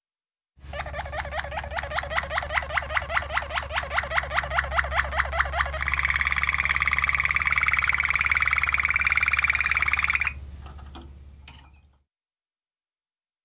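Malinois Waterslager canary singing: a run of rising, water-like notes at about eight a second, then a fast, even rolling trill that breaks off about ten seconds in and trails away.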